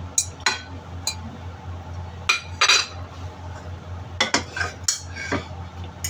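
Metal utensil clinking and scraping against dishware while food is served: several sharp separate clinks and a couple of short scrapes, over a low steady hum.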